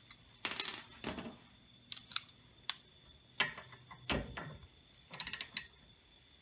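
Hand tools clinking and clicking as a socket on an extension is fitted to a brake-hose banjo bolt on a caliper. A quick run of ratchet clicks comes about five seconds in as the bolt is turned in.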